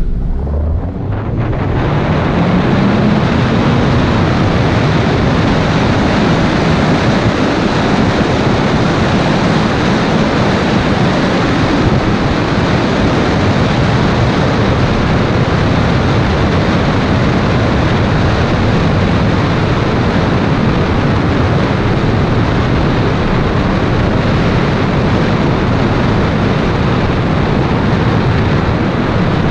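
Wind rushing over a camera microphone mounted on the front of a moving Toyota MR2 mk2, mixed with tyre and road noise. The noise builds over the first two seconds as the car gathers speed, with a tone rising in pitch, then holds steady and loud.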